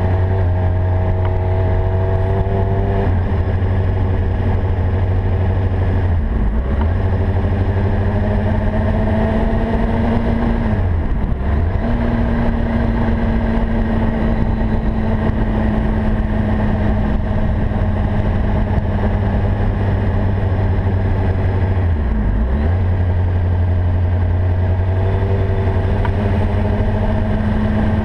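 Honda CBR600RR sport bike's inline-four engine running at a steady cruise, its note slowly rising and dropping briefly a few times as the throttle changes, with steady wind noise throughout.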